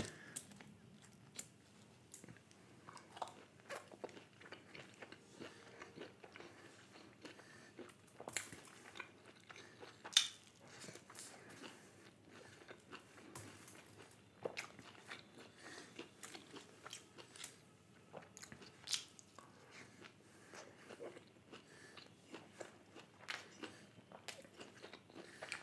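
Quiet close-up eating: bites and chewing of a vegetable spring roll, with short irregular crunches and mouth clicks, the loudest about ten seconds in. The roll's outer wrapper has gone soggy.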